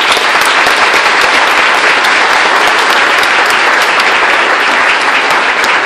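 A large crowd applauding: loud, dense, steady clapping.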